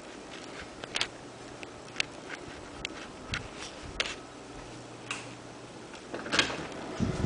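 Mechanical ticking, roughly one sharp tick a second, over a faint low hum.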